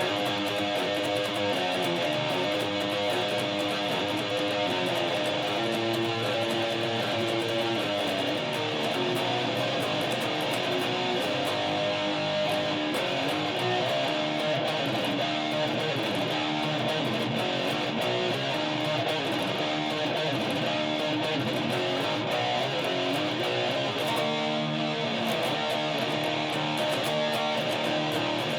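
Guitar playing a medley of heavy metal and rock riffs, the notes changing continuously at an even loudness.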